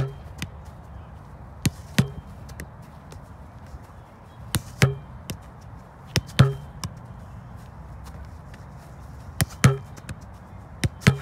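Soccer ball being kicked and striking a handmade wooden rebounder board, giving sharp knocks, many in quick pairs, every second or two.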